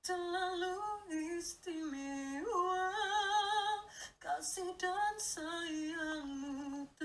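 A teenage boy singing in a high, female-sounding voice, imitating a legendary female singer: held notes with vibrato, with a short break about four seconds in.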